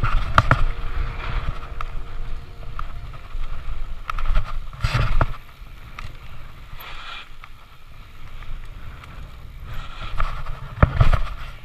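Giant Reign 2 full-suspension mountain bike descending a rough dirt trail, heard from the rider's helmet: tyres rumbling over the ground with rattling and sharp knocks over bumps, hardest at the start, about five seconds in and near the end.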